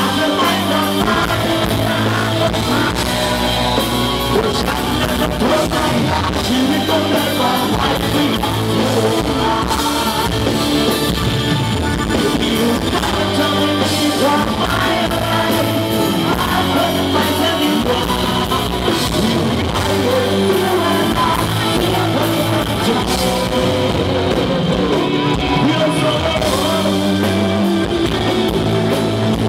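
Live rock band playing loud through a PA: a male singer's vocals over electric guitars, bass and a drum kit.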